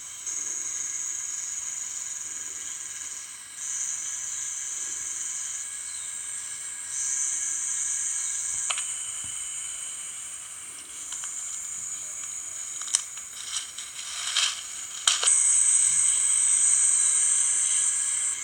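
A steady high hiss that steps up and down in level, with a few sharp clicks and knocks about halfway through and a little later. The sound is thin, with nothing in the low range.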